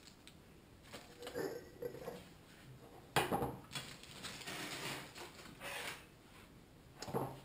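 Aluminium foil crinkling as it is crumpled up and handled, starting suddenly about three seconds in and going on for a few seconds, after a few light knocks of a metal spoon.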